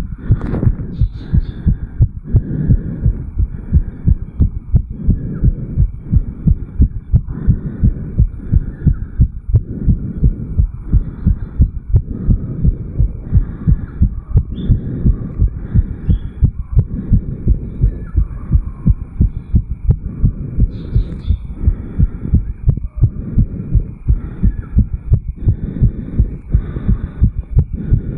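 An adult man's heart beating fast, about 160 to 180 beats a minute just after a jog uphill, recorded at the chest over the mitral valve area. The valves close in a rapid, even rhythm of about three beats a second.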